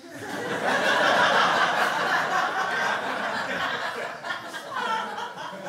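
Live audience laughing at a punchline, loudest in the first couple of seconds and then slowly dying down.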